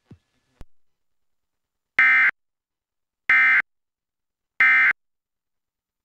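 Emergency Alert System end-of-message signal: three short, loud, high-pitched bursts of digital data tones, about 1.3 seconds apart, marking the close of the tornado warning broadcast.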